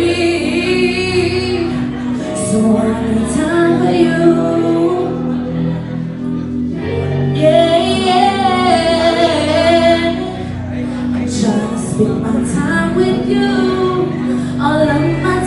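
A woman singing into a handheld microphone over backing music, holding long notes that waver in pitch.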